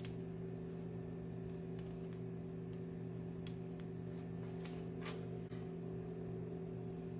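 A steady low hum, with a few faint light taps and a brief scrape from topping and coating chocolate-covered pretzel rods by hand.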